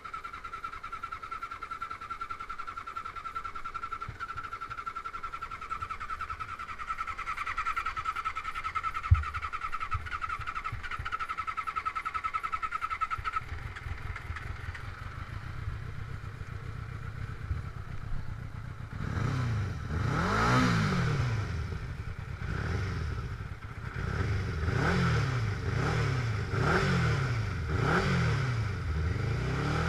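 Off-road buggy's motorcycle engine first running with a steady high whine, then revving up and down repeatedly over the last ten seconds as it drives on. There is one sharp knock about nine seconds in.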